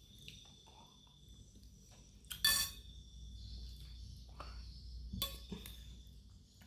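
Cutlery clinking against a noodle bowl while eating: a ringing clink about two and a half seconds in and a second, shorter clink just after five seconds.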